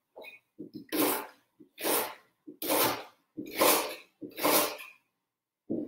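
Kitchen knife cutting through fresh ginger root on a wooden cutting board: after a few faint knocks, five cuts about a second apart.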